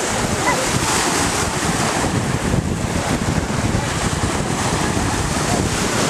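Wind buffeting the microphone over the steady wash of small sea waves at the shoreline.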